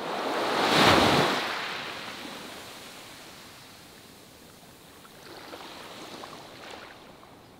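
Sea waves breaking and washing in: one big surge about a second in that fades away over a few seconds, then a smaller wash later on.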